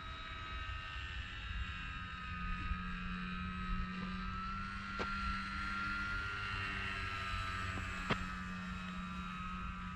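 Electric motor and enlarged propeller of a Dynam Cessna 188 RC model plane whining steadily in flight, its pitch drifting slowly up and down, over low wind rumble on the microphone. Two faint clicks, about halfway through and near the end.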